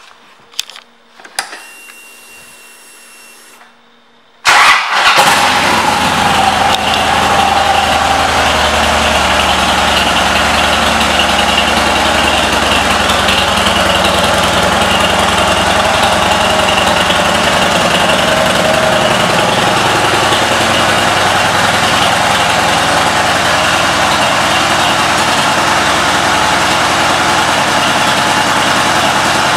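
Harley-Davidson Ultra Classic's air-cooled V-twin engine: a few clicks, then it cranks and fires about four and a half seconds in and settles into a steady idle.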